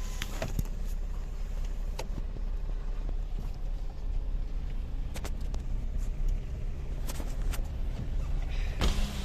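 Car driving along a road, heard from inside: a steady low rumble with scattered clicks and knocks, and a brief hiss near the end.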